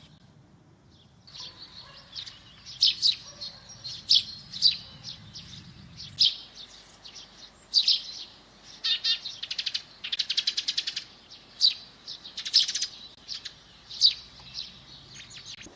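Small songbirds chirping and singing in many short, high calls that start about a second in, with a fast rattling trill around ten seconds in.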